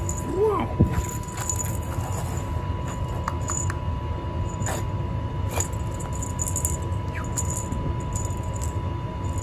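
Feathered cat wand toy dragged and flicked across a concrete floor: short scattered rattles, ticks and scrapes. A steady low hum runs underneath.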